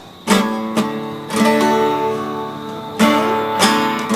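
Acoustic guitar strumming chords and letting them ring, with a fresh strum about three seconds in.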